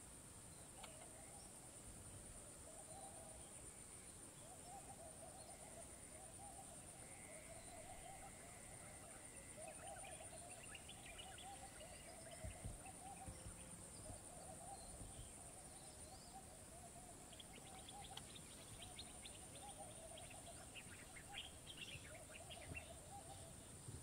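Faint wild ambience, close to silence: a steady high insect drone, with faint bird calls coming and going and a few quick faint chirps in the second half.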